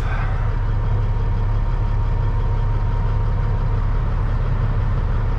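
Peterbilt 379 semi truck's diesel engine idling steadily, a low even hum heard from inside the cab.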